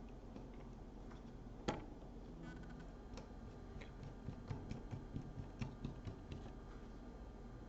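Faint small clicks and ticks of a screwdriver and screws being worked into a folding knife's handle during reassembly. There is one sharper click a little under two seconds in, then a scattered run of light ticks about halfway through.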